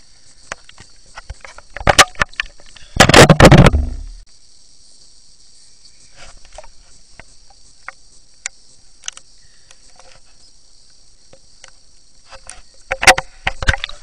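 Underwater sound picked up by a camera handled in a swimming pool: scattered clicks and knocks, a loud rumbling water burst about three seconds in, and another cluster of knocks near the end, over a steady high-pitched hiss.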